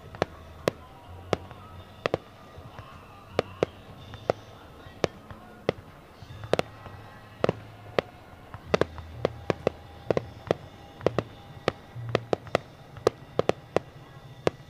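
Fireworks display: aerial shells bursting in an irregular run of sharp bangs, coming thicker and faster in the second half, over a low rumble.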